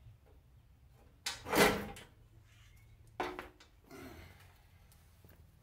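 Metal clanks and scraping of a GMC S15 pickup's front bumper being worked loose and lifted off: a loud clattering clank about a second and a half in, a shorter clank with a brief ring just after 3 seconds, and a softer knock around 4 seconds.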